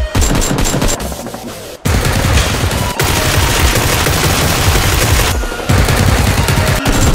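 Rapid automatic gunfire, a machine-gun sound effect dubbed over the Nerf battle, in two long volleys starting about two seconds in, with background music under it.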